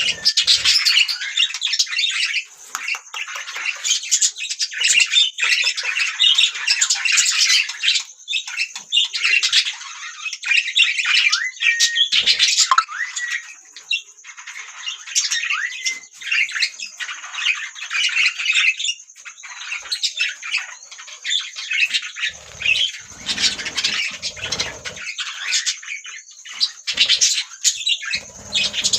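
Budgerigars chattering: a steady stream of quick chirps, warbles and squawks, with a thin steady high tone behind it.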